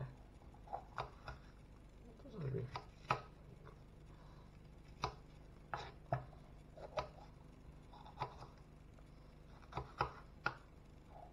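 Kitchen knife chopping a red bell pepper into small squares on a plastic chopping board: a dozen or so sharp, irregularly spaced knocks of the blade on the board.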